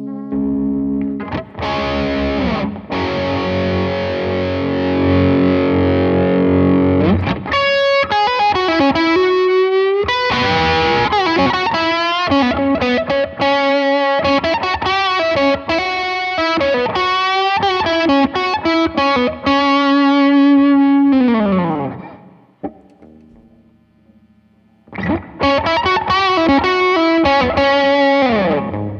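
Electric guitar played through a Blackstar JJN20 MkII amp. A chord rings for several seconds, then a run of single-note lead lines with string bends ends in a slide down and fades out. After a short pause, chords come back near the end.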